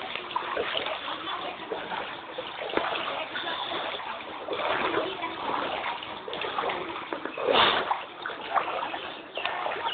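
Floodwater splashing and sloshing continually, with one louder splash about three-quarters of the way through.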